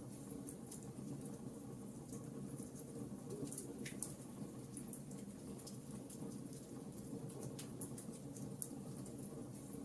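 Campfire crackling: irregular sharp snaps and pops of burning wood over a low, steady background of the flames, with a few louder pops, one about four seconds in.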